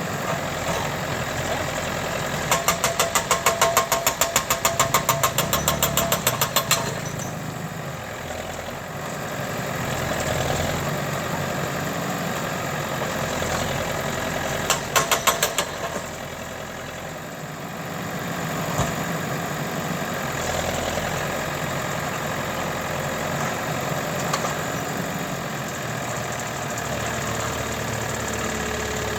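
Diesel tractor engine with a loader attachment running at idle, rising and falling a little in level. Two runs of loud, rapid ticking cut in over it: one lasting about four seconds early on and a short one around the middle.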